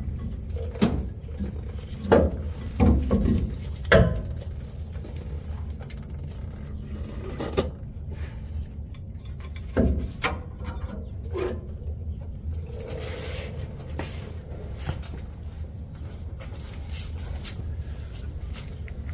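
Scattered knocks and scrapes from metal parts being worked loose on a pickup's rear disc brake caliper, clustered in the first few seconds and again about ten seconds in, over a low steady hum.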